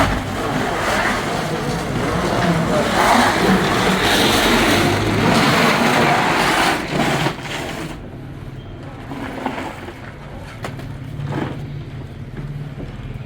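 Motor vehicle running with engine and road noise, loud for about the first seven seconds and then easing to a quieter steady hum with a few knocks.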